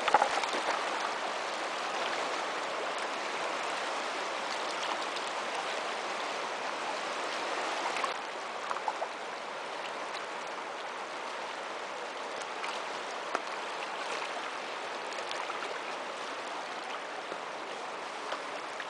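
A fast river rushing over a stony bed: a steady wash of water, a little quieter after about eight seconds, with a few small clicks or splashes now and then.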